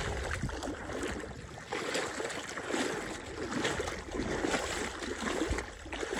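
Water sloshing and splashing in an uneven rhythm as someone wades step by step through shallow lake water.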